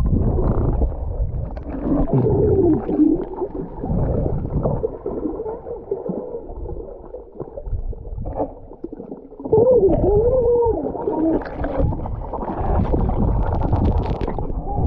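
Muffled underwater sound from a submerged camera: water washing and gurgling, everything dull below about 1 kHz. Twice, a few seconds in and again just past the middle, wavering tones rise and fall through it.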